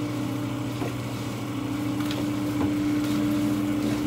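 A hand sprayer hisses as it rinses a soapy dog in a grooming tub, over a steady mechanical hum with a fixed pitch.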